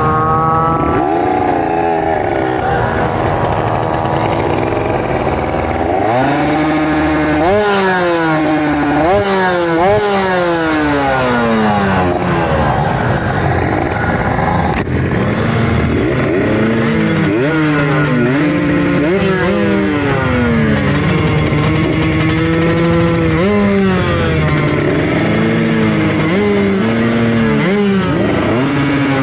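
Kawasaki Ninja RR 150 two-stroke engine revving hard and accelerating through the gears, its pitch climbing and then dropping sharply at each of several shifts. After that it revs up and down in shorter bursts.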